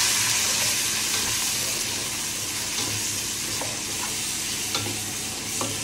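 Chopped tomatoes, onions and spices frying in oil in a pot: a steady sizzle that eases a little as it goes, while a wooden spatula stirs them, with a few light scrapes.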